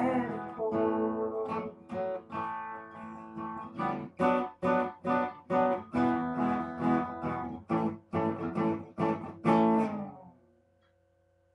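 Guitar strummed in a steady rhythm through the closing bars of a song. The last chord, the loudest strum, comes near the end and rings out and fades, leaving only a faint steady hum.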